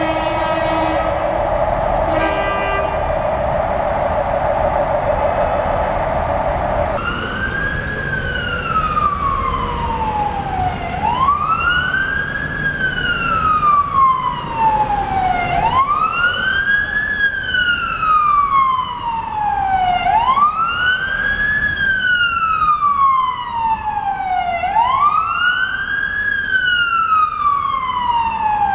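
Fire engine's siren sounding a slow wail, each cycle a quick rise and a longer fall, repeating about every four seconds. It starts about seven seconds in, after a steady rushing noise.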